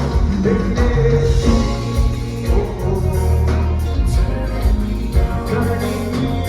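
Live band playing Haitian kompa music with a singer: a steady bass line, regular drum hits and sung vocals.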